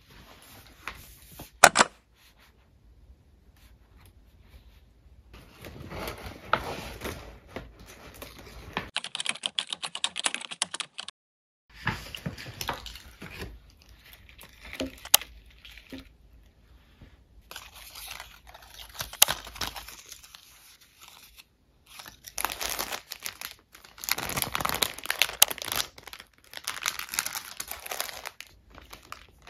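Plastic wrapping and packaging crinkling and rustling as shop-bought Christmas decorations are handled and unwrapped, in several separate stretches with short gaps. A sharp click stands out about two seconds in.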